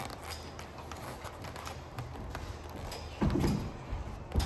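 Work on a bus's metal roof as a solar panel is pressed down onto its mounting brackets: light knocks over a low steady hum, then two heavy dull thumps, one about three seconds in and one at the end.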